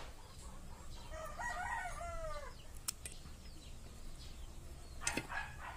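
A rooster crowing once, about a second in, the call ending in a falling note. Two sharp clicks follow later, the louder near the end.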